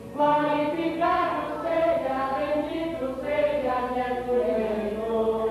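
A small group of mostly women's voices singing a Portuguese hymn together, a slow melody of held notes.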